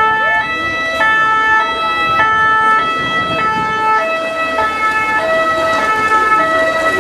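Ambulance's French two-tone "pin-pon" siren, alternating steadily between a high note and a low note about every half second.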